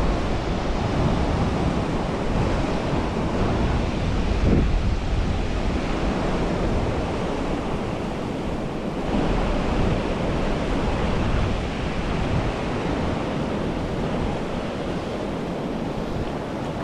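River water rushing over a rocky riffle, with wind buffeting the microphone.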